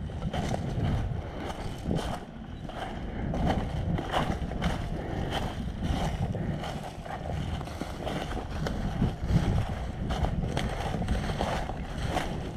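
Footsteps crunching through dry leaves and brush, one or two steps a second, over a low rumble of wind buffeting the microphone.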